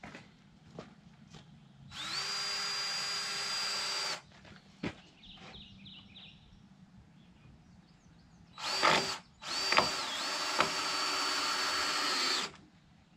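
Power drill driving a fastener into the top of a wooden stair stringer, run in three bursts: a steady whine of about two seconds, then a short burst and a three-second run. The pitch sags briefly under load in the last run. A single sharp knock comes between the first and second bursts.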